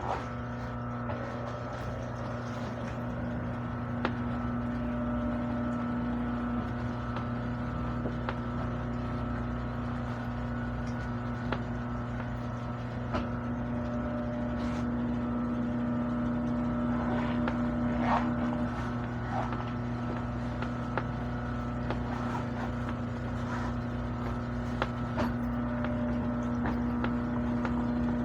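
Sewing machine's electric motor running with a steady hum, with scattered light clicks.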